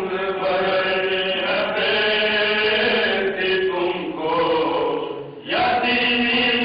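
A group of men chanting a marsiya, an Urdu elegy, in melodic unaccompanied voices. The voices break off briefly about five seconds in, then come back in.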